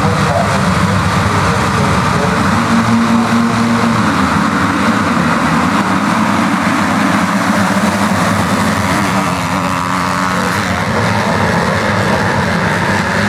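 A pack of motocross bikes running hard together, many engines at high revs overlapping in one steady, loud drone.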